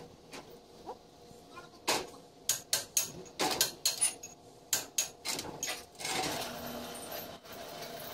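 Sharp metal knocks and clinks from a homemade hand-operated steel sheet-rolling jig as its pivoting arm and hub are moved by hand. The knocks come in a quick irregular run of about a dozen, from about two seconds in to about six seconds in, followed by a faint steady hum.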